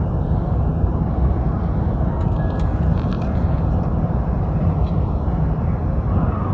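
Steady cabin noise inside an Airbus A350-900 on approach with flaps extended: a deep, even rumble of airflow and its Rolls-Royce Trent XWB engines.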